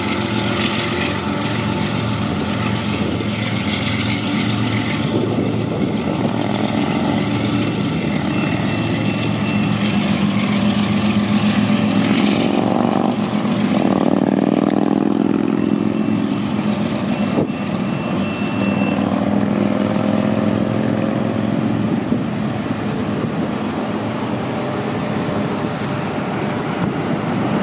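Freight grain train rolling past with a steady, droning howl over the rumble of the cars. The howl swells about halfway through, then eases back. Its cause is unknown.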